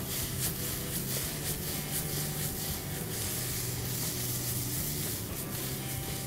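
Button mushrooms, garlic and sliced spring onion sizzling in hot oil in a wok as it is tossed: a steady hiss with faint crackles.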